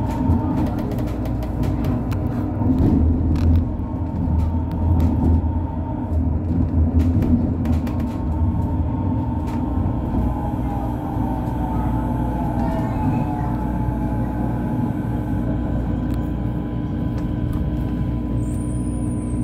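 Busan–Gimhae Light Rail train running on elevated track: a steady motor whine with wheel and rail rumble, heavier in the first third. About ten seconds in, the whine falls in pitch as the train enters a station.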